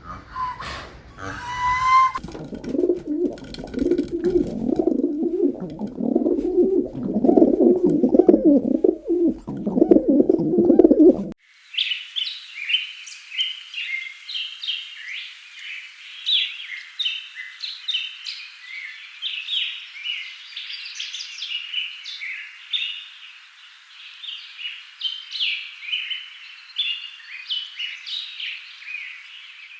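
Low, repeated cooing calls, then after a sudden cut, birds chirping in quick, high notes.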